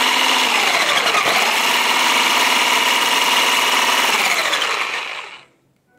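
Handheld electric mixer with a wire whisk attachment running in a ceramic mug of coffee and milk, frothing it. Its steady motor whine dips in pitch briefly about a second in, then winds down and stops near the end.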